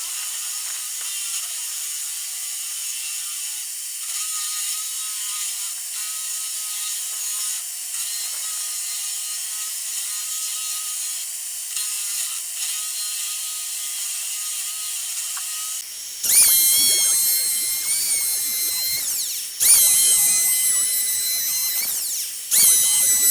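Power tool running with a wet and dry vacuum extracting its dust: a steady high-pitched mechanical noise. About two-thirds of the way in, a high-pitched motor is switched on three times in short runs, its pitch climbing each time as it spins up and then holding steady.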